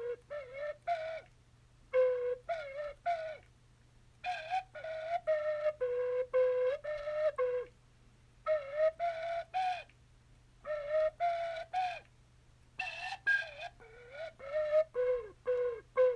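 A simple melody in a flute-like, whistling tone, played as six short phrases of four to nine notes each, with a steady low hum beneath it.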